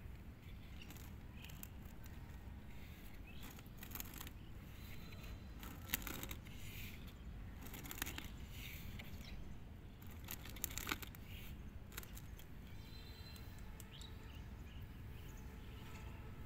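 Faint outdoor ambience: a steady low rumble with scattered short clicks and a few faint, brief high chirps.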